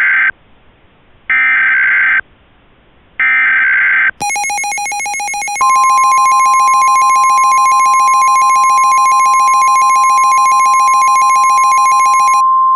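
Emergency Alert System SAME header: three harsh, screeching digital data bursts about a second apart, the first already under way. It is followed by the EAS two-tone attention signal, a steady buzzy tone, which about a second and a half later is joined by the steady 1050 Hz NOAA Weather Radio alert tone. The two-tone signal stops shortly before the end while the single 1050 Hz tone goes on, announcing a new warning.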